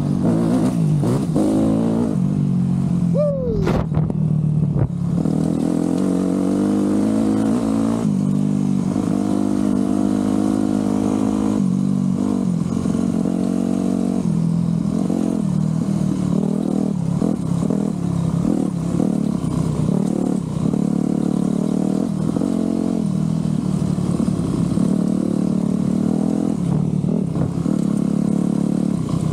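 Yamaha YZ125 two-stroke single-cylinder motocross bike running under way, its revs climbing and dropping again and again as the rider works the throttle.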